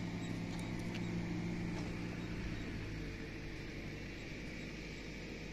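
A motor vehicle engine hums steadily over outdoor noise, its hum fading about three seconds in.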